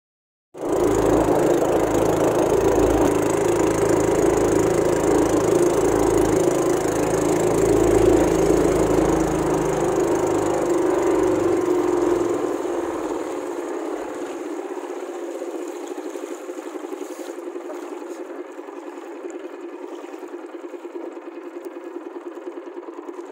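A small motorboat engine running steadily. About halfway through, it becomes quieter and loses its deep rumble.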